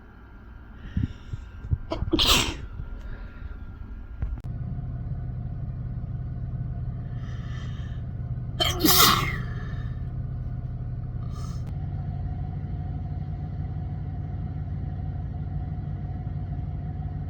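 A person sneezing twice: each time a quick breathy intake, then a loud, sharp sneeze, about two seconds in and again about nine seconds in. A steady low hum comes in behind them about four seconds in.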